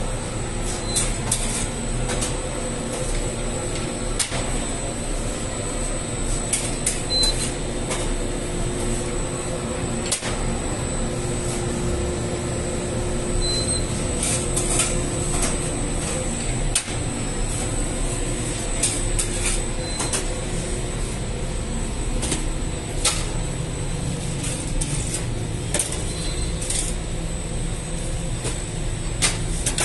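Steady drone of bakery machinery with a thin, high, steady whine, broken by scattered clicks and knocks of work at the oven.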